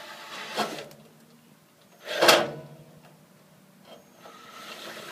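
Handling noise from tools and parts: a steady whir stops about half a second in, then a short knock, and a loud clatter about two seconds in, followed by softer rustling near the end.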